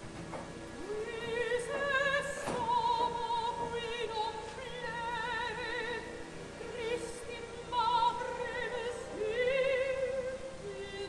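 Background music: operatic singing in long held notes with a wide vibrato.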